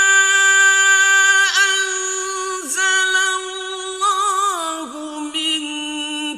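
A high male voice reciting the Quran in the melodic, drawn-out mujawwad style, holding one long ornamented note for about four seconds and then sliding down to a lower held note.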